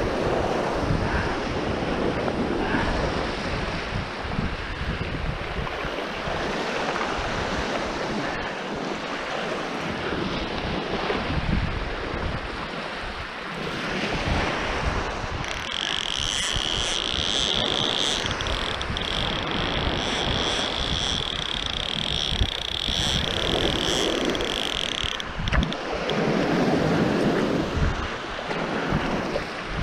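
Wind buffeting the microphone over small waves breaking and washing on a shingle beach. About halfway through, a steady high-pitched tone of unclear source sounds for about ten seconds and then stops.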